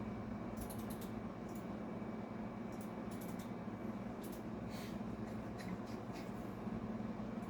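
Steady low room hum with faint, scattered light clicks.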